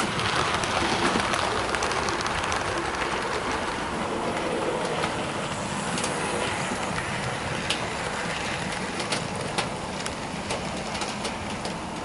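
A Hornby OO gauge Terrier 0-6-0T model locomotive and its coaches running along model track, a steady whirring rumble of the motor and wheels. It is loudest in the first few seconds and eases off a little, with scattered sharp clicks from the wheels over the rail joints later on.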